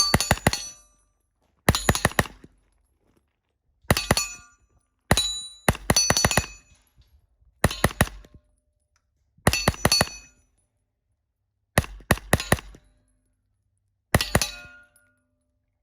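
Rifle fire on a multi-gun stage: about nine quick groups of shots, each one or several shots close together, with steel targets ringing after the hits.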